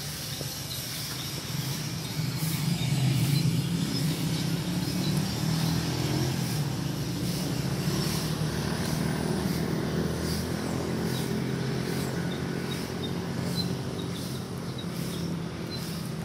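Steady drone of an engine running, loudest about three seconds in, with faint regular ticks over it.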